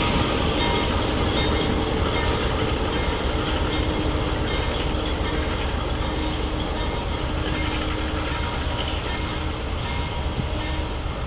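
Diesel locomotive running as it draws a maintenance train slowly away, its rumble fading gradually, with a few clicks from the wheels over the yard track.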